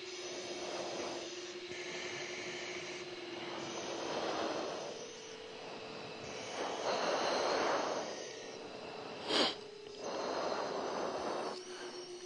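A pilot's breathing through an oxygen-mask microphone on a hot-mic cockpit intercom: about five slow, hissing breaths over a steady hum that steps up in pitch about four and a half seconds in. One sharp click sounds about nine and a half seconds in.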